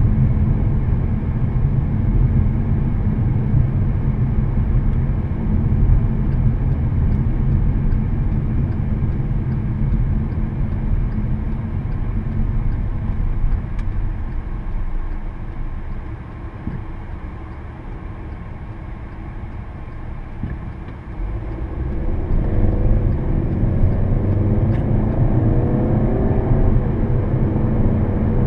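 In-cabin sound of a 2014 Volkswagen Passat 1.8T's turbocharged four-cylinder engine and road noise while driving: a steady low rumble that dies down about halfway through as the car slows for a turn. The engine note then climbs in several rising sweeps as the car accelerates away.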